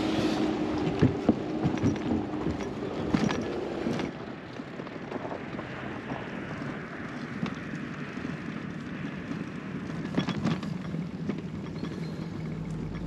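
An engine running steadily aboard a small river car ferry, with scattered knocks and clanks. About four seconds in it cuts to a quieter, even rush of wind.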